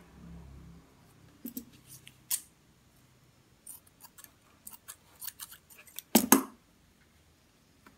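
Large metal tailor's shears cutting folded ribbon: a scatter of small clicks from the blades and handling, then one loud sharp snip just after six seconds in.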